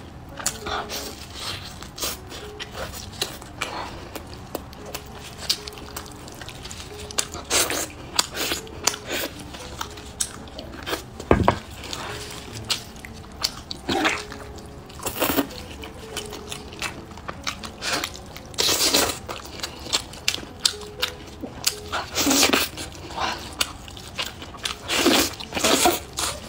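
Close-up wet eating sounds of braised pork knuckle: irregular smacking, squelching and chewing clicks as the soft skin and meat are bitten and chewed.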